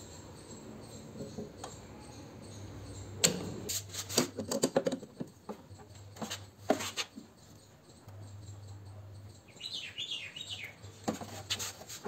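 Metal clicks and rattles of hand tools working on a Bajaj Chetak scooter's brake light switch and brake linkage, in several short bursts. A brief cluster of high chirps comes about ten seconds in.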